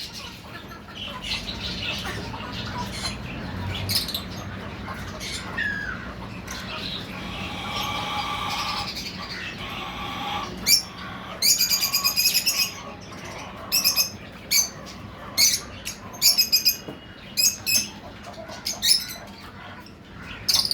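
Lovebirds chattering, then giving short shrill chirps and squawks in quick bursts that grow louder and more frequent about halfway through.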